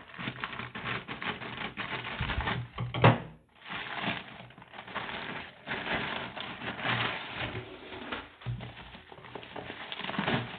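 Plastic courier mailer being opened and handled: dense crinkling and rustling of the plastic, with one sharp louder crack about three seconds in, and the bubble-wrapped box handled near the end.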